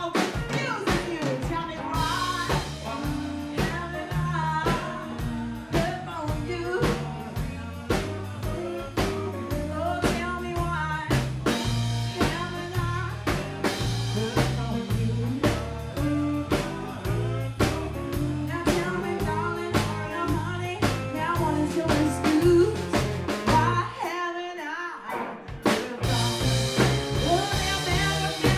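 Live band playing: a woman sings lead into a microphone over acoustic and electric guitars, bass and a drum kit keeping a steady beat. Near the end the bass and drums drop out for a second or so, then the full band comes back in.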